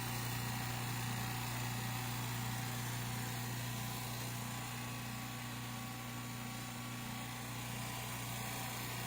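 California Air Tools ultra-quiet oil-free air compressor running steadily, a low even motor hum with most of its noise coming from the intake.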